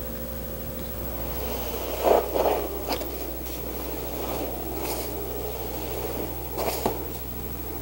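Felt-tip marker being drawn around a seat template on a slab of foam: a scratchy rasping with a few sharper scrapes, starting about a second and a half in.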